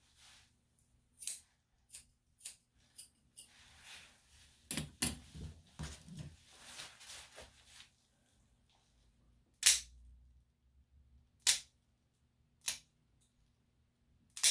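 Grooming scissors snipping a dog's coat in single, separate cuts, each a sharp click, at irregular gaps of one to two seconds. About five to eight seconds in there is a stretch of softer rustling with low thumps.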